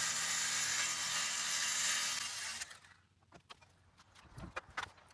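Electric circular saw cutting through a wrapped bass drum shell, a steady hiss that dies away about halfway through as the saw stops. A few light clicks and knocks follow.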